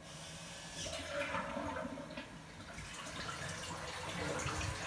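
A toilet flushing: a rush of water that swells about a second in and keeps running.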